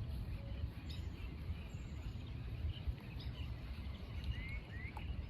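Steady low outdoor background rumble with a few faint clicks, and two short rising bird chirps a little after four seconds in.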